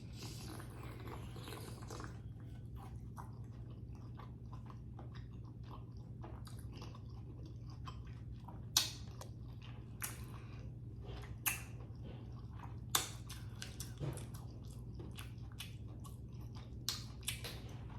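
Close-miked chewing of a green-lipped mussel: slow, wet mouth clicks and smacks, with a few sharper, louder smacks now and then, over a faint steady low hum.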